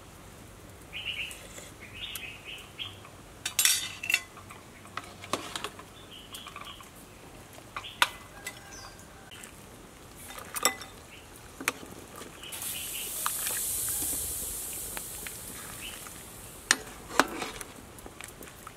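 Metal spoon and ladle clinking against a ceramic soup bowl, several separate sharp clinks. A little past the middle comes a steady hiss of about three seconds as broth is ladled into the bowl.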